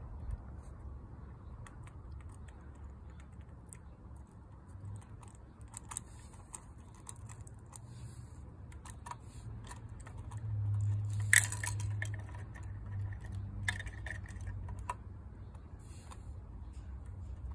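Small scattered clicks and taps of plastic and die-cast parts as a First Gear toy garbage truck's side-loader arm and miniature trash carts are handled, the sharpest click about eleven seconds in. A low steady hum runs underneath and swells briefly around the middle.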